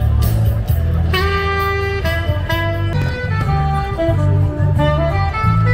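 Music with a steady bass line, and a melody of held notes that comes in about a second in and steps through several pitches.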